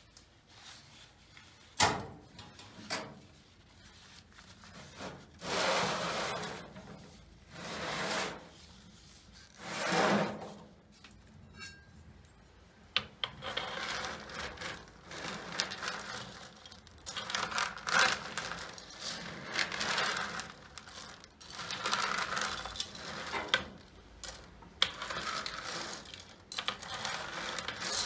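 A metal oven door on a wood-burning stove clanks open, then a metal tray of roasting nuts is worked with a metal utensil: long scraping strokes at first, then a busy rattling and clicking of the nuts against the tray.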